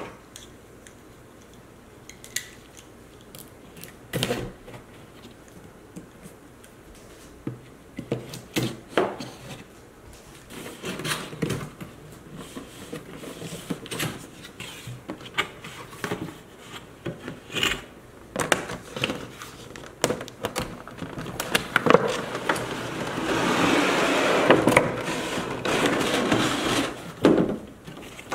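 Cardboard figure box handled on a wooden table: scattered knocks and rubs as it is turned and lifted, growing into busier sliding and scraping. Near the end, a clear plastic blister tray and its wrapping are pulled out with a long crinkling rustle, the loudest part.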